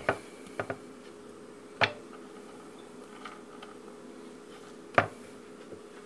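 A small VCR idler wheel with a new rubber tire being rolled and pressed by hand on a wooden cutting board to seat the tire, giving a few sharp knocks against the wood, the loudest about two seconds in and near the five-second mark, over a faint steady hum.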